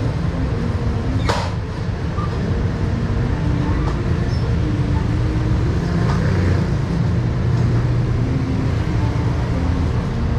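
Steady road traffic rumble, engines running and shifting in pitch, with a sharp knock about a second in.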